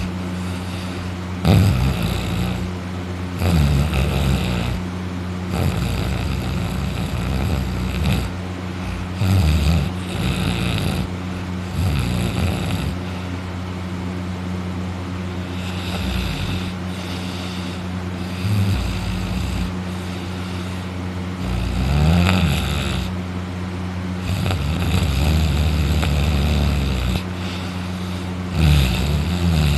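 Person in deep sleep snoring loudly, lying on the back with the mouth open: a run of heavy snores, one every few seconds, over a steady low hum.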